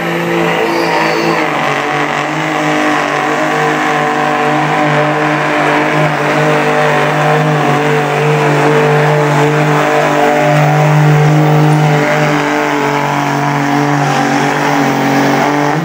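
Diesel 4x4 pickup truck's engine at full throttle under heavy load as it drags a weighted pulling sled, its pitch held steady through a long pull.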